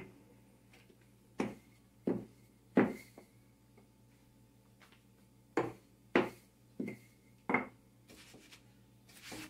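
Wooden rolling pin knocking on a floured kitchen counter as a ball of flour-tortilla dough is rolled out flat: about seven short sharp knocks in two quick runs.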